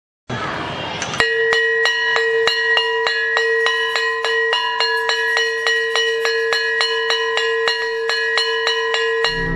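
A school's hanging brass gong bell struck rapidly and steadily with a stick, about three or four strokes a second, its tone ringing on between strokes. It begins about a second in and stops just before the end. The fast, unbroken run of strokes is the way the bell is rung at the end of the school day.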